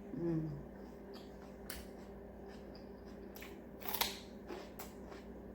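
A person eating close to the microphone: crisp bites and chewing clicks, loudest about four seconds in, with a brief low hum at the start.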